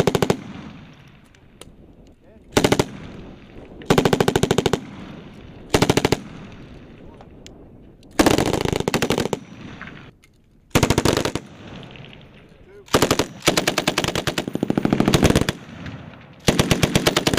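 M240 and M249 belt-fed machine guns firing bursts of automatic fire: about eight bursts, some short, a few running one to two seconds, each shot-train trailing off in a brief echo before the next.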